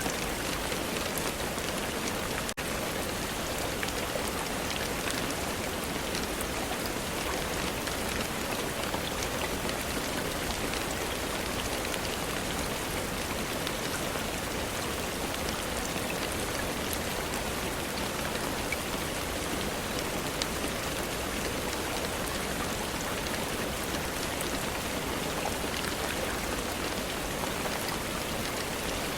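Steady rain falling, an even hiss with fine scattered drop ticks, broken by a split-second dropout about two and a half seconds in.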